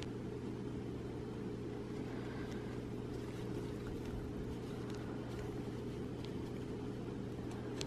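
A steady low hum runs throughout, with faint scattered ticks and rustles of thick acrylic yarn and a yarn needle being worked through crochet stitches to sew on a button.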